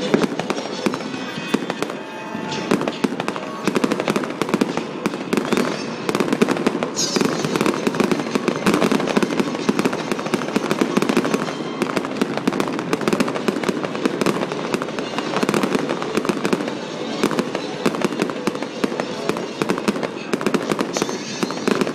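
Fireworks display going off: a dense, continuous run of bangs and crackles with barely a gap.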